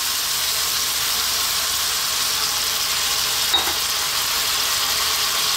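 Hot pan of onion, tomato and tomato sauce sautéing in olive oil, sizzling steadily as a little water is poured in, with one faint click about three and a half seconds in.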